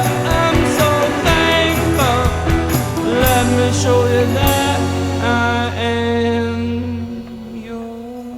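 Background music: a rock song with a sung vocal over guitar, bass and drums, thinning out to a quieter held accompaniment near the end.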